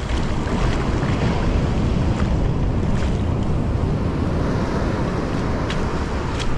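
Ocean surf breaking and wind buffeting the microphone: a loud, steady rush with a few faint clicks.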